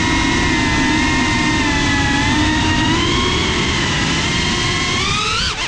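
FPV drone's electric motors and propellers whining steadily, picked up by the onboard GoPro with a rush of wind noise. About five seconds in, the pitch climbs sharply as the throttle is raised, then dips briefly.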